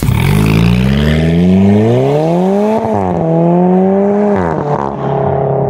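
Alfa Romeo 4C's turbocharged 1.75-litre four-cylinder, fitted with an aftermarket downpipe, sport catalyst and Titan exhaust, accelerating hard. The revs climb for nearly three seconds, drop sharply at an upshift, climb again, then ease off to a steady lower note.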